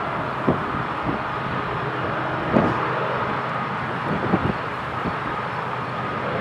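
A long, heavy Union Pacific freight train climbing very slowly upgrade at a distance: a steady rumble of locomotives and rolling cars, with a faint high steady tone and a few soft knocks.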